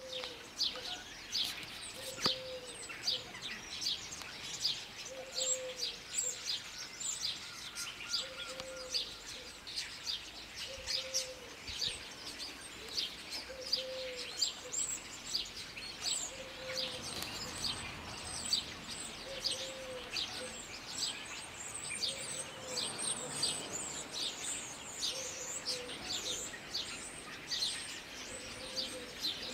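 Outdoor birdsong: many small birds chirping rapidly and continuously, with a low call repeated every two seconds or so.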